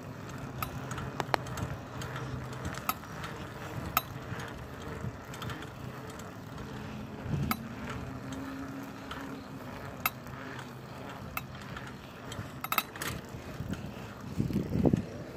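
Bicycle being ridden over pavement: steady tyre and rolling noise with many scattered short clicks and rattles from the bike. There is a louder burst of noise near the end.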